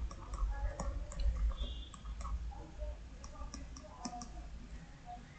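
A stylus tapping and clicking on a tablet screen while handwriting, a scatter of light, irregular clicks over a low hum.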